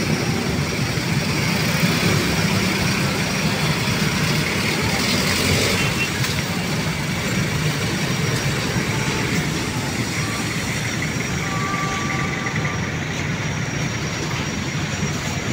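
Steady urban road traffic noise, a continuous rumble of passing vehicles with no distinct single event.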